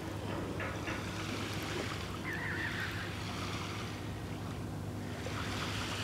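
Steady wash of sea surf on the shore, with wind on the microphone.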